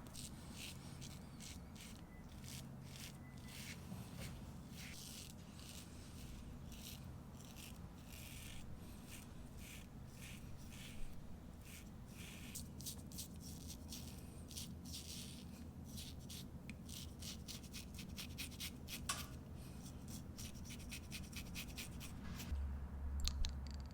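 Wet-shaving strokes on the face: an irregular run of short, crisp scrapes and rubs, several a second, over a low steady hum, with a louder low rumble near the end.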